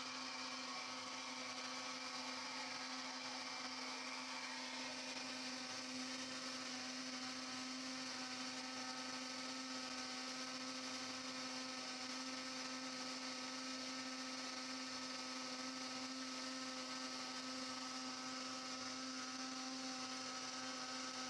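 Electric blender running steadily with an even motor hum, puréeing onions, garlic and honey into a smooth liquid.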